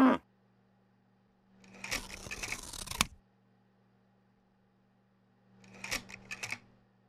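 A cow's moo cuts off right at the start. Two short bursts of crisp clicking and rustling follow, each about a second long and some three seconds apart, the first ending in a sharp click. A faint steady hum lies under them.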